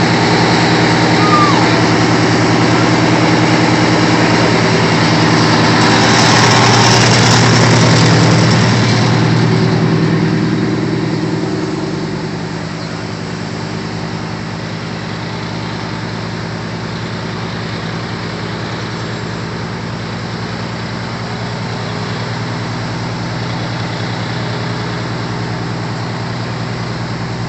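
Fire truck's diesel engine idling with a steady low hum, louder for a few seconds about six seconds in, then settling quieter from about twelve seconds on.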